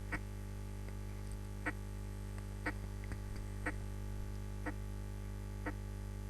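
Recorded heart sounds: a first heart sound with very minimal splitting, the normal variant in a healthy subject. It comes as short beats about once a second, with fainter sounds between them, over a steady electrical hum.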